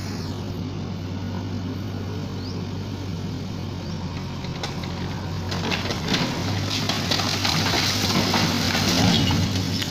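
JCB backhoe loader's diesel engine running steadily. From about halfway, cracking and crunching grow louder as the bucket pushes over an old concrete overhead water tank, which topples near the end.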